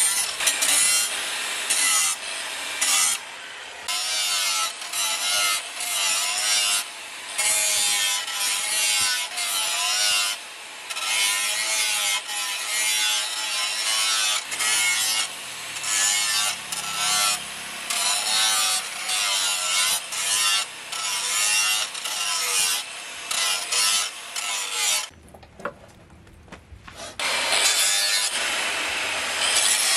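Hand-held angle grinder with an abrasive disc grinding a steel blade cut from a disc plough, in repeated short passes with brief breaks between them; the motor's whine wavers as the disc is pressed into the steel. It goes quiet for about two seconds near the end, then starts again.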